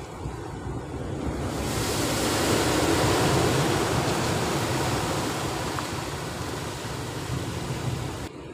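Sea surf breaking and washing over rocks close by. The rush builds over a second or so, is loudest about three seconds in, then slowly eases and cuts off suddenly near the end.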